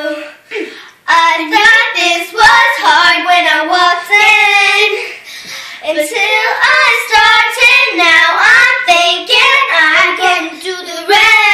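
Young girls singing a song without instruments, the melody running almost without break apart from a brief pause about a second in.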